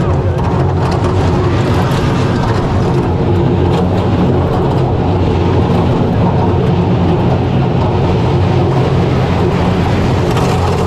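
Kiddie roller coaster train rolling along its track, heard from the front seat: a steady, loud rumble of the wheels with a few light clicks.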